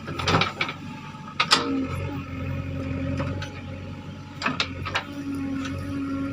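JCB 3DX backhoe loader's diesel engine running steadily, with a higher whine that comes in twice and several sharp knocks.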